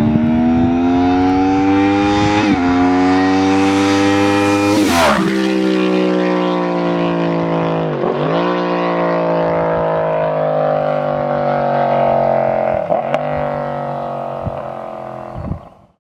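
2009 Yamaha R1's crossplane inline-four, through a Toce T-Slash aftermarket exhaust, accelerating hard past: the pitch climbs through the gears and drops at each upshift, with the pass-by about five seconds in. It then pulls away, fading toward the end before cutting off.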